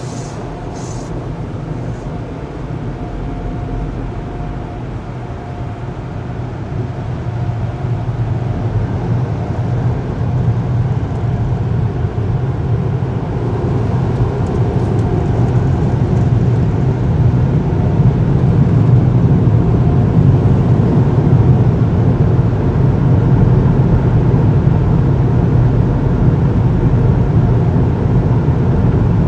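Car wash air-dryer blowers, heard from inside the car's cabin: a steady low roar that grows louder over the first twenty seconds or so and then holds. Right at the start there is a brief hiss of water spray striking the windshield.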